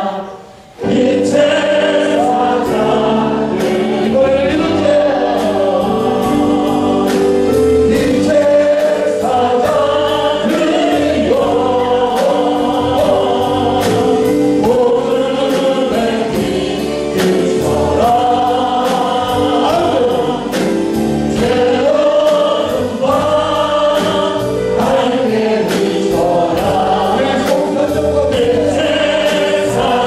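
Korean gospel worship song: a male worship leader sings into a microphone and a congregation sings along, over instrumental accompaniment with a steady beat of about two a second. The music breaks off briefly just after the start, then carries on.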